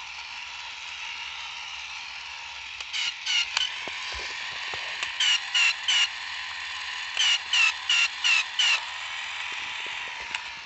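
Tomy Spotbot toy robot running with a steady whir from its battery motor and gears. It chirps in quick groups: three, then three more, then five, each chirp dipping in pitch at the end. The chirps come from the toy's mechanism, not from any electronics.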